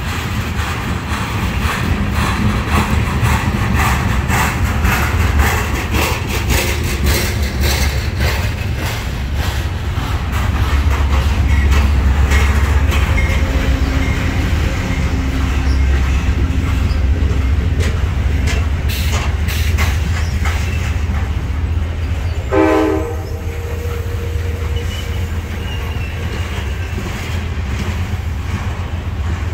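Freight train of loaded trash containers on flatcars rolling past close by: a steady low rumble with rattling and repeated clicking of wheels over the rail joints. About two-thirds of the way through, a short horn note sounds once.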